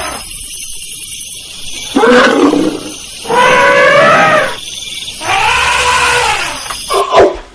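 Elephant calling: three loud, pitched calls of about a second each that rise and fall in pitch, followed near the end by short sharp blasts.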